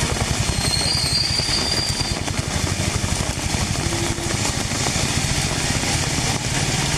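Heavy rain hissing down on a city street, with the low, steady running of traffic engines from auto-rickshaws and motorbikes underneath.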